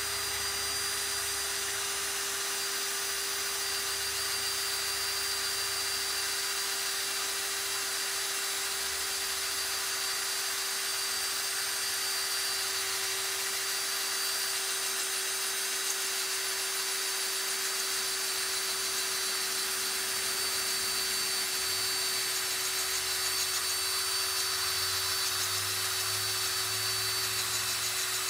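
Cordless drill running continuously at a steady speed, a held motor whine over the grinding of its bit boring into a rusted steel screw to drill off the head.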